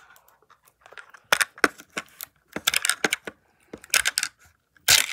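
Hard plastic toy capsule being handled and twisted open, giving clusters of sharp plastic clicks and rattles, with short quiet gaps between them.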